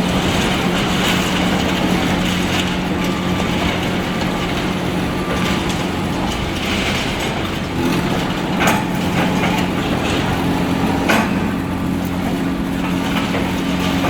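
Excavator's diesel engine running steadily under work, its note shifting twice as the load changes, with two sharp knocks from the demolition work, the first about nine seconds in and the second about two seconds later.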